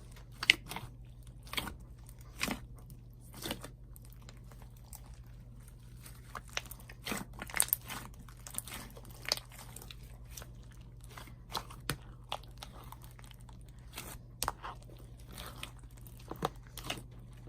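Hands squishing and poking a thick homemade slime packed with foam beads and clay, giving irregular small crackles, pops and squelches.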